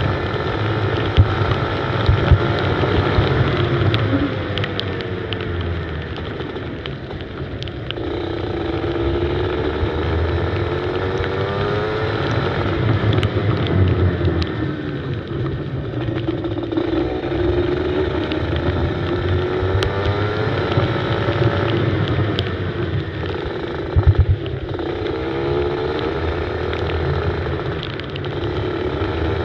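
Kart engine heard close up from an onboard camera, its pitch rising and falling again and again as the throttle opens and closes, over a steady rush of noise. A couple of sharp knocks about 24 seconds in.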